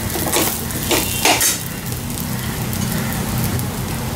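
Metal spoon scraping and clinking against a steel kadhai while stirring tapioca pearls (sabudana) with diced potato frying in a little oil. There are a few sharp scrapes in the first second and a half, then a steady sizzle.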